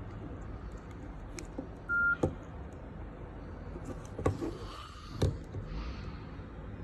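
Nokia 301 mobile phone giving a single short beep about two seconds in, followed by three sharp clicks spread over the next few seconds, over a steady low hum.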